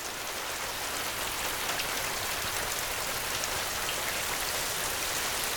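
Heavy rain falling steadily, a continuous patter of drops on surfaces.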